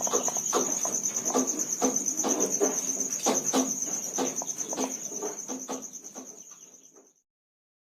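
A chicken sick with ngorok aratan, a respiratory infection that makes the bird snore and gasp for breath, gives a quick series of short raspy sounds, about three or four a second. Crickets trill steadily and high behind it. Both fade out near the end.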